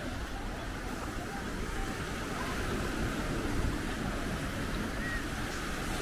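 Steady seaside noise of ocean surf washing, with wind on the microphone.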